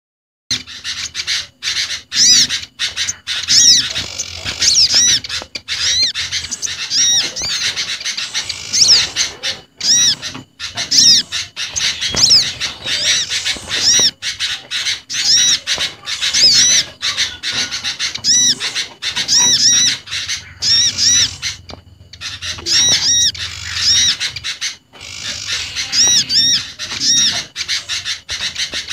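A mix of small garden songbirds calling in a dense run of sharp, high chirps and short arching notes, repeated several times a second with only brief pauses. It is a bird-catchers' lure recording combining the olive-backed sunbird, the bar-winged prinia, the sooty-headed bulbul and other small birds.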